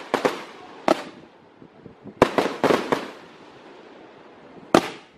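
Fireworks exploding overhead in sharp bangs, each trailing off in echo: a couple near the start, one about a second in, a rapid cluster of several between two and three seconds in, and a single bang near the end.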